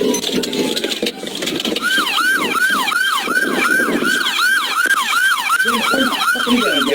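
Police car siren: a slow falling wail in the first second over road noise, then from about two seconds in a fast yelp of about three rising-and-falling sweeps a second, which cuts off abruptly near the end.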